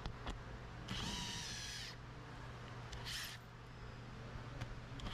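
Ridgid cordless power driver with a socket spinning out the undertray fasteners beneath the front bumper. It runs in two short bursts, the first about a second long and the second shorter, and its whine drops in pitch as each burst stops.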